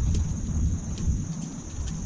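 Plastic packaging rustling, with a few light clicks, as a plastic heater panel is pulled out of its bag, over a low rumble and a steady high whine.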